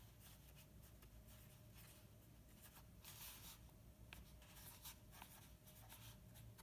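Faint scratching strokes of a brush pen's tip on paper as letters are written, stroke after stroke, the loudest about three seconds in. A faint steady hum lies underneath.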